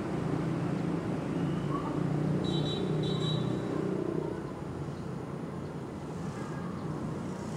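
Low, steady rumble of road traffic, easing off about halfway through. Two short high chirps come near the middle.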